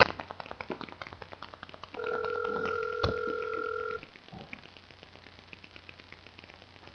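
Telephone ringback tone heard over a phone's speakerphone: one steady two-second ring about two seconds in, then silence in the line's pause, the call still unanswered.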